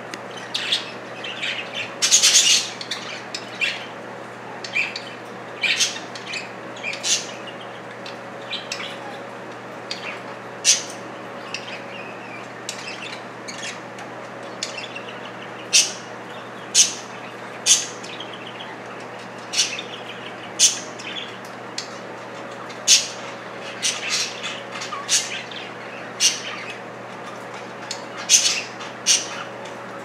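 Budgerigars chirping and giving short, sharp squawks at irregular intervals while they scuffle over food.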